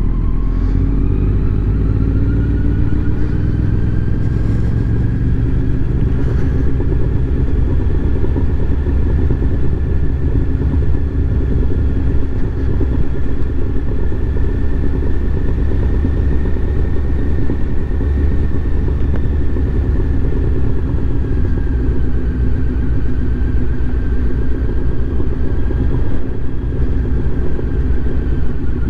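Kawasaki Z900 inline-four with an Akrapovic exhaust running at low road speed. Its pitch rises over the first few seconds as the bike picks up speed, holds steady, then eases off slightly later on. A steady wind rumble on the microphone runs underneath.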